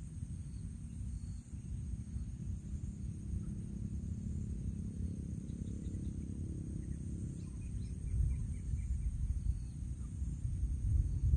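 Steady high-pitched insect chorus over a low, uneven rumble that grows louder in the second half, with a short run of faint chirps a little past halfway.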